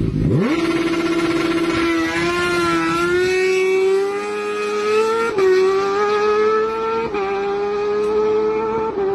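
Kawasaki Ninja ZX-6R inline-four engine pulling hard at high revs. A quick rise in pitch at the start gives way to a high, steady note that climbs slowly and dips sharply with each upshift, about every two seconds in the second half.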